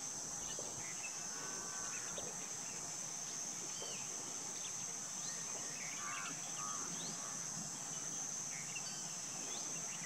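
A steady, high-pitched insect drone, with scattered short chirps and whistles of small birds over it.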